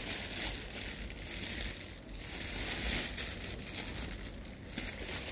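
Thin plastic bags crinkling and rustling as they are handled.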